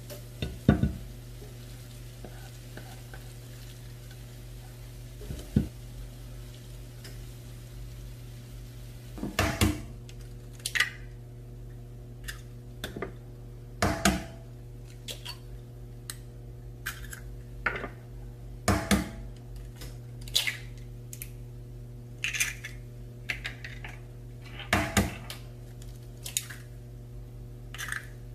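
A silicone spatula knocking and scraping as fried food is scooped into a glass container, then eggs cracked one after another on the rim of a ceramic bowl: four sharp cracks several seconds apart, with small clicks of shells in between. A steady low hum runs underneath.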